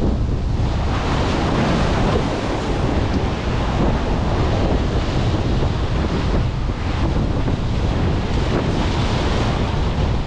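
Sea waves surging and washing among the concrete tetrapods at the foot of a breakwater, under heavy wind rumble on the microphone. A loud, steady rush that swells and eases.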